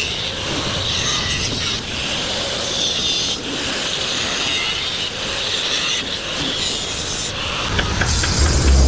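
Abrasive rubbing on a metal tube, such as filing or grinding, as a continuous rasping noise that changes abruptly every second or two.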